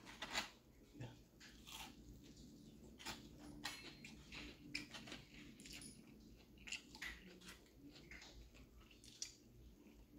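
A person chewing fried fish and coleslaw, faint, with scattered soft irregular clicks and crunches.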